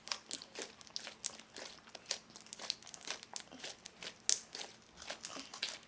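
Fluffy shaving-cream slime being squeezed and stretched by hand, giving a run of small, irregular clicks and crackles.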